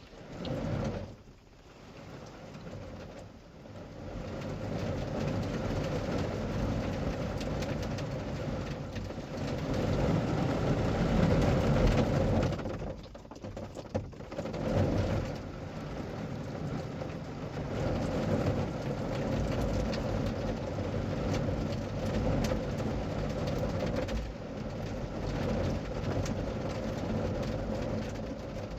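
Water drumming on a car's roof and body as a dense, steady noise that swells and dips, loudest about a third of the way in. It is a rain-noise test of how well sound deadener damps the car.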